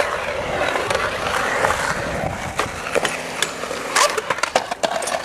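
Skateboard wheels rolling on a concrete bowl, a steady rumble, with a few sharp clacks about four seconds in as the board reaches the coping at the lip.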